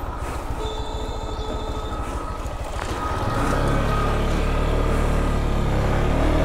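Lifan KPR 165 motorcycle's single-cylinder engine running as the bike rides along, getting louder about three seconds in.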